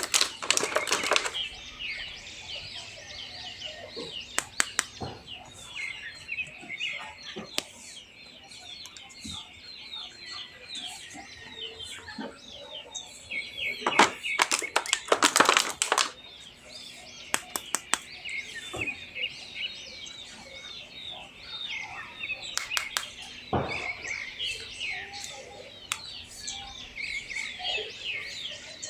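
Many small birds chirping continuously in a dense chatter, with scattered sharp clicks and rustles over it, the busiest stretch about halfway through.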